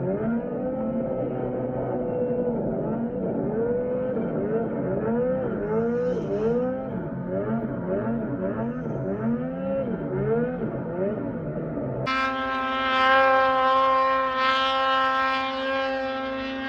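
Two-stroke snowmobile engines. The rider's 2013 Arctic Cat M800 revs up and down over and over, rising and falling in pitch many times. About twelve seconds in, the audio cuts to another snowmobile's engine holding high, steady revs as it climbs a hill.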